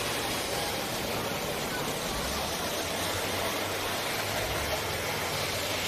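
School buses' engines running in a demolition derby, heard as a steady, noisy drone with no distinct crash.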